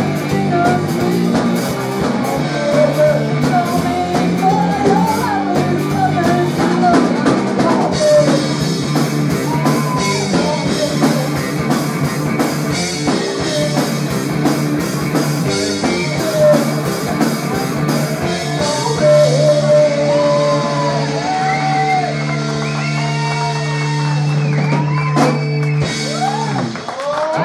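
Live rock band playing: electric guitar, electric bass and drum kit, with singing. Later on the bass holds one long low note under sliding guitar notes, and it cuts off shortly before the end.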